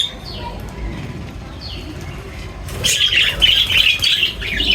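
Small birds chirping: a couple of single downward chirps, then a dense run of rapid chirping from a little past halfway to the end.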